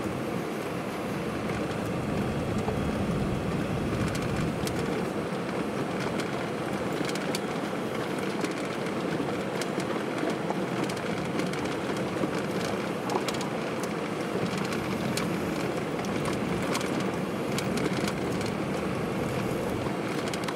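Tyres rolling over a gravel road, a steady crunching with scattered small clicks of stones, together with the vehicle's running noise, heard from inside the cab.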